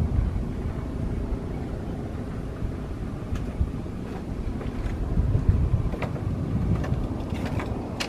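Twin-engine jet airliner on short final approach, its engines a low, uneven rumble, with wind buffeting the microphone and a few faint clicks in the second half.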